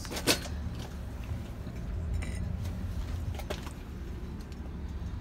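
Light clicks and clinks of a metal oil pump part being handled: one sharp click about a third of a second in, a short scrape about two seconds in and a few faint clicks later. A low steady rumble runs underneath.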